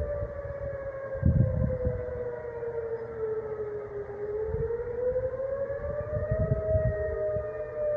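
Outdoor tornado warning siren sounding a test, a two-tone wail whose pitch slowly sags about halfway through and then rises again.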